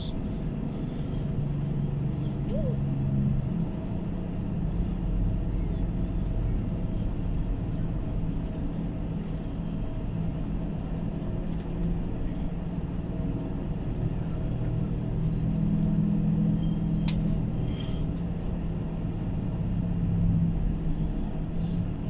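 Engine and road rumble of a moving vehicle, heard from inside. Three short, high-pitched beeps come several seconds apart.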